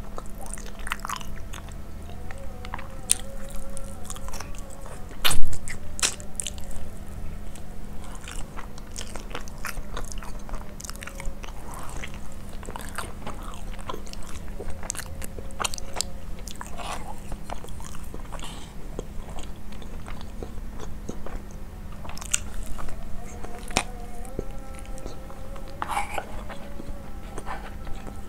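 Close-miked chewing and biting of grilled chicken and basmati rice, with many wet mouth clicks and smacks over a steady low hum. One loud thump comes about five seconds in.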